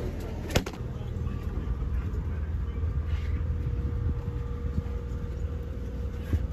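Steady low hum of a boat's engine running, with a faint steady whine over it. A single sharp knock about half a second in.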